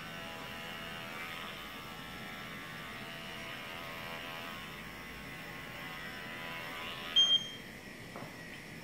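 Cordless electric pet clipper running with a steady hum as it trims the fur on a Bichon Frise's face. The hum stops about seven seconds in, followed by a short high beep.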